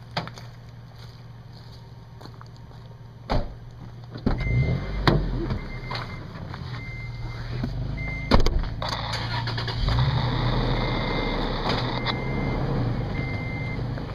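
Off-road vehicle engine idling, then pulling away along a rough trail with a rising rumble and a few sharp knocks. A short high beep repeats about every second from about four seconds in, and a steady hiss joins about nine seconds in.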